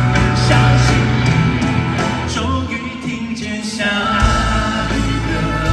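Pop ballad music with no words recognised; the deep bass drops out for a few seconds in the middle and comes back near the end.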